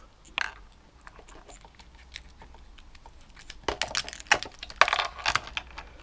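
Key being turned in a Zontes Tiger 125 motorcycle's ignition switch, with the keys on the ring jangling: a few isolated clicks, then a quick run of clicks and jingling about four seconds in.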